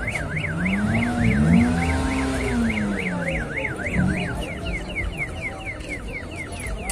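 Car alarm siren sounding: a tone rising and falling about four times a second, which changes about halfway through to a series of quick falling chirps.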